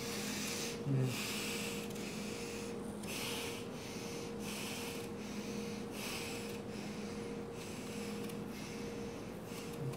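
A knife paring the skin off a green apple: short rasping cuts, about two a second, over a steady low hum.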